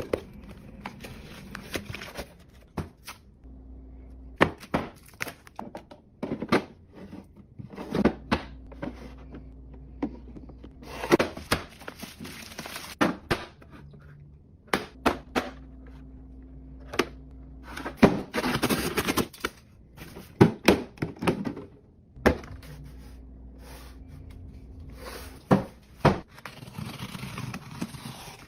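Containers and packaging being handled and set down while a fridge is restocked: many sharp knocks and clicks, with a few longer stretches of rustling noise.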